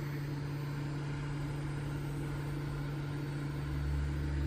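Hot air rework gun's blower running steadily with a constant low hum, heating the phone's back panel to soften its adhesive. A brief low rumble swells about three and a half seconds in.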